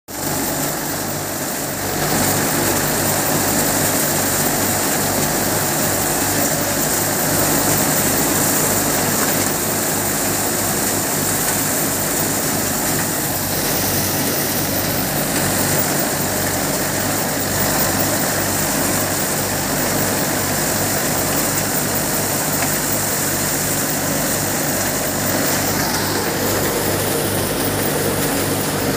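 Kamdhenu tractor-driven thresher running under load while dry crop plants are fed into it, with the Mahindra 475 DI tractor's diesel engine driving it. A steady mechanical din with an even low throb, growing louder about two seconds in.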